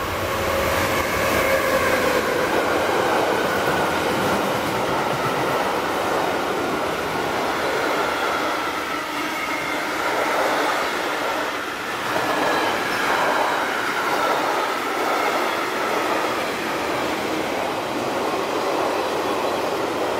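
Freight train passing close by behind a Siemens Vectron electric locomotive: the locomotive goes past first, then covered wagons, stake wagons and car-transporter wagons rolling over the rails in a steady, loud rumble. Several steady whining tones run over the rolling noise, falling a little in pitch as the locomotive passes near the start.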